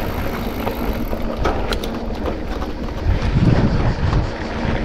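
Hardtail mountain bike rolling down a dry dirt singletrack: tyres on loose dirt and a steady low rumble of wind on the microphone, with the bike rattling in sharp clicks and knocks over bumps, thickest about a second and a half in.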